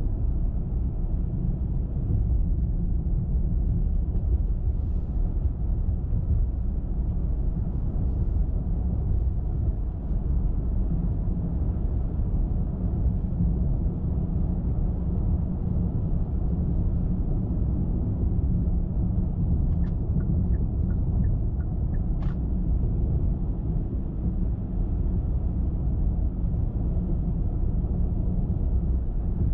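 Steady low road rumble and tyre noise from a car driving at a constant speed. About twenty seconds in come a few faint ticks and a sharp click.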